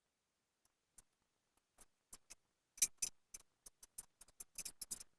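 Irregular sharp clicks and taps of stainless steel handrail fittings being handled and pushed into place, with a closer run of clicks near the end.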